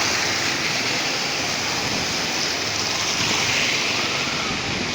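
Steady rushing of floodwater, an even unbroken wash of water noise.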